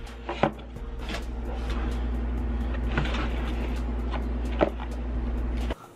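A steady low rumble, with a few soft knocks and rustles from a cardboard pizza box being handled. The rumble cuts off suddenly near the end.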